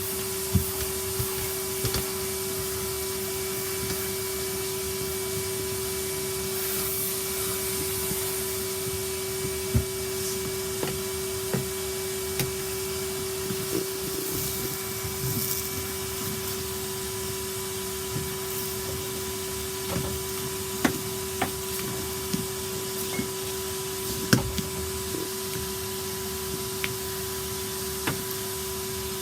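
Henry cylinder vacuum cleaner running with a steady hum, with scattered short knocks and clicks as it is worked around.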